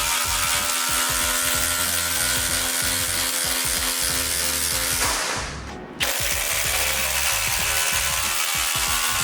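Cordless impact driver hammering continuously as it drives a lag bolt into wood, a rapid rattling of impacts under the motor whine. About five seconds in, the sound fades away and then starts again abruptly.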